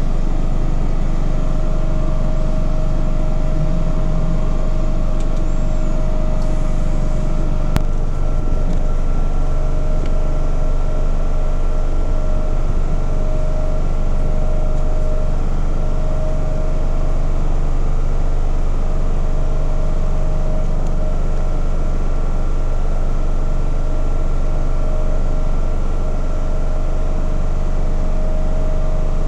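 ACHI IR6500 infrared BGA rework station running while it heats the board to solder-melting temperature: a loud, steady hum with a constant faint whine.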